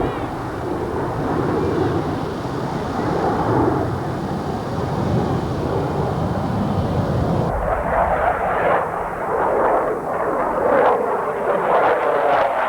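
Radio-controlled model race cars running laps with a buzzing motor whine that rises and falls as they pass. About seven and a half seconds in the sound changes abruptly.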